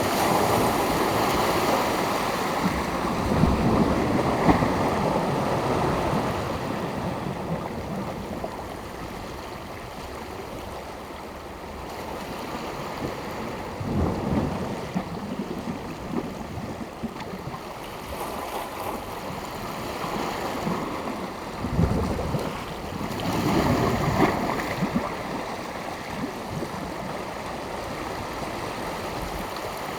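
Sea waves washing onto the shore, a steady wash that swells and ebbs, with louder surges at the start, about halfway through and again a little past two-thirds of the way.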